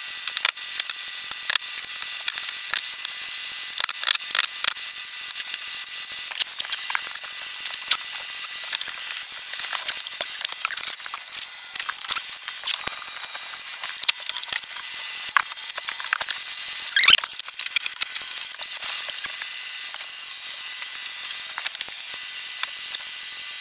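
Scattered knocks and clicks of wooden slats, dowels and pipe clamps being handled during a glue-up, over a steady hiss. The loudest clatter comes about two-thirds of the way through.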